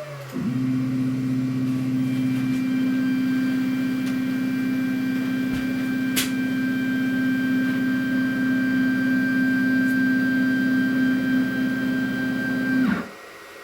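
An electric motor switched on, running at a steady speed with a constant hum for about twelve seconds, then switched off and winding down.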